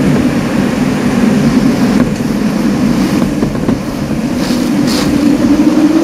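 Typhoon wind blowing hard, with overhead high-voltage power lines ringing out in a steady, eerie drone that swells and fades with the gusts. Heard from indoors through a window pane.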